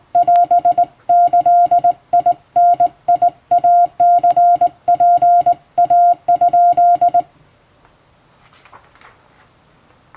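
Hand-keyed Japanese Wabun Morse code: a steady tone of about 700 Hz switched on and off in dots and dashes by a telegraph key. The sending stops about seven seconds in, and a faint rustle follows.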